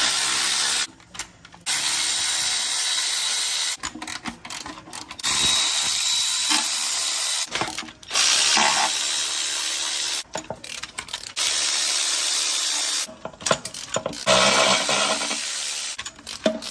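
Cordless electric ratchet spinning out oil pan bolts in about six runs of one to two seconds each, with short pauses between.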